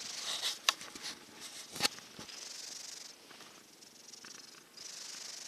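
Mackerel tabby kitten snoring in its sleep: slow, raspy, breathy snores, one about every two and a half seconds. The kitten is getting over a cold. Two sharp clicks sound in the first two seconds.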